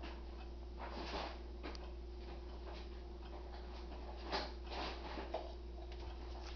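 Ansonia Regulator 'A' pendulum wall clock ticking steadily, with a few louder soft knocks about a second in and again around four to five seconds in.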